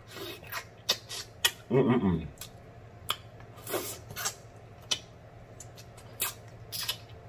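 Wet sucking and lip-smacking as meat is sucked off a neckbone, with scattered sharp clicks and a short falling "mm" moan about two seconds in.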